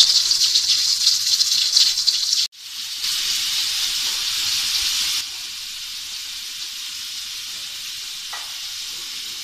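Aluminium pressure cooker at full pressure letting off steam through its valve: a loud, steady hiss. It cuts off abruptly about two and a half seconds in, comes back, and drops to a quieter steady hiss about five seconds in.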